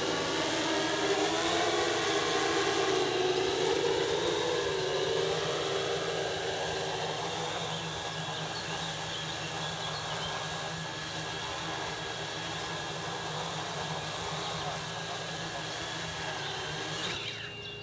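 Multicopter's electric motors and propellers humming, several pitches wavering and shifting over the first few seconds, then settling into a steadier, somewhat quieter hum.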